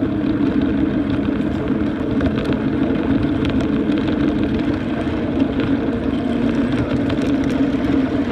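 Ride-on miniature train running along its track: a steady engine-like drone and rumble, with occasional light clicks.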